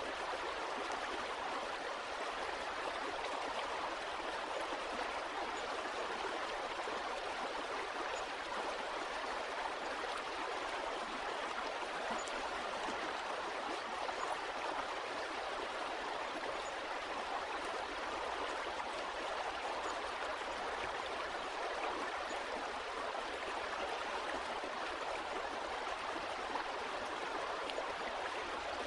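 Flowing water running steadily, a constant rushing and gurgling like a stream, with no change through the stretch.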